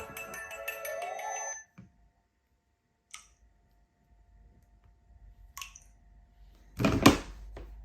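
Mobile phone ringtone playing a many-toned melody that ends in a rising sweep and cuts off suddenly about a second and a half in. After a pause with a couple of faint clicks, a loud knock comes near the end.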